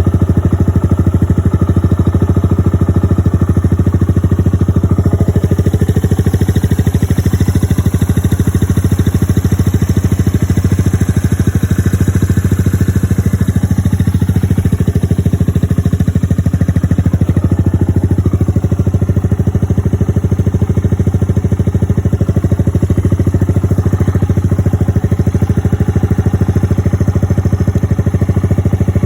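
Suzuki VanVan 200's air-cooled single-cylinder four-stroke engine idling steadily, holding an even idle with its carburettor freshly stripped and cleaned.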